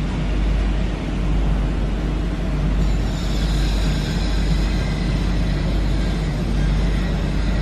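Steady low rumble of vehicles echoing in a concrete underpass, with a faint high whine joining about three seconds in.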